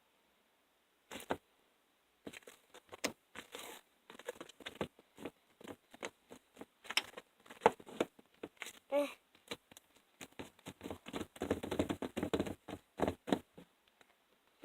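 Homemade slime being kneaded and pressed down by hand: irregular sticky clicks, crackles and squelches, thickest a little past the middle.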